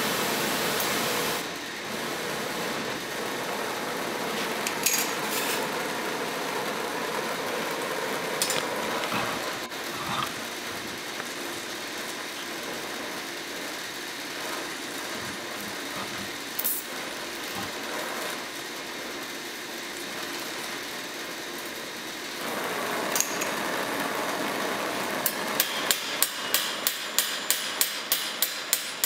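Oxy-acetylene torch hissing steadily as it heats a steel rivet on a spatula. Near the end a ball-peen hammer starts striking the hot rivet in quick, even blows, about three a second, peening it over.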